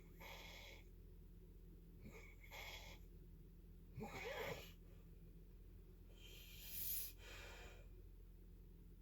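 A sleeping person breathing loudly, four breaths about two seconds apart, with a short snoring rattle about four seconds in and a longer, airier breath near the end.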